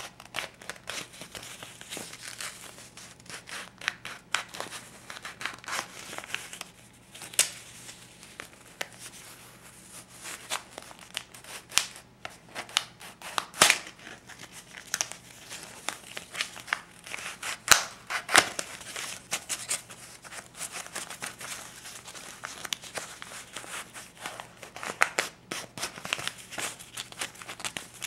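A stack of US paper banknotes, $50 and $20 bills, being handled and flipped: irregular crisp crinkles, rustles and rubbing of the paper, with a few sharper snaps around the middle.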